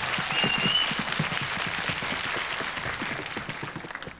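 Studio audience applauding, fading away toward the end, with a short high whistle about half a second in.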